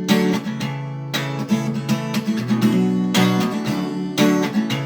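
Acoustic guitar strummed in a steady rhythm, the instrumental break between sung lines of a song.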